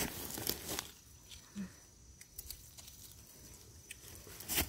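Dry leaf litter and twigs crackling and rustling underfoot: scattered light crackles, then a louder crunch near the end.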